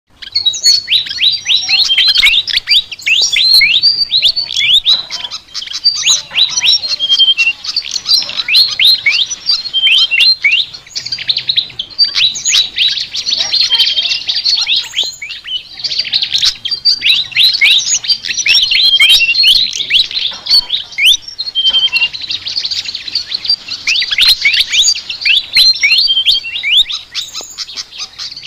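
A sikatan (Asian flycatcher) singing a fast, unbroken chattering song of high chirps and quick downward-sliding whistles, with brief lulls every few seconds.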